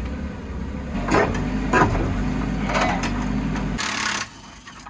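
Power saw cutting through metal under the car, running steadily with a few harsher scraping strokes, then stopping a little under four seconds in.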